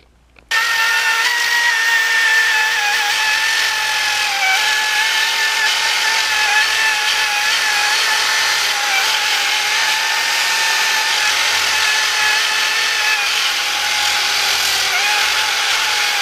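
Small high-speed rotary tool (Dremel type) with an abrasive disc grinding cast lettering off a powder-coated motorcycle wheel hub. It gives a steady high whine that wavers slightly in pitch under load, starting sharply about half a second in.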